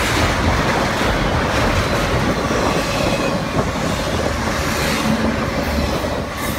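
Canadian Pacific freight train's cars rolling past close by: a steady, loud rumble and rattle of steel wheels on the rails.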